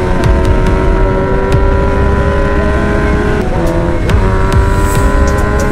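Motorcycle engine pulling steadily under way, its pitch climbing slowly with two brief dips a little past halfway, over the low rumble of wind on the handlebar-mounted microphone.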